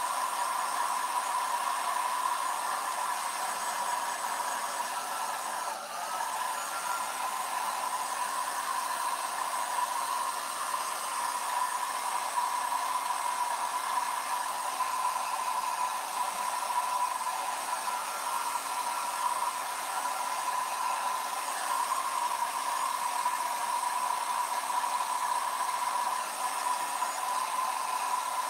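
Handheld hot-air blow dryer running steadily, drying freshly applied chalk paste on a silk-screen transfer, with a brief dip in level about six seconds in.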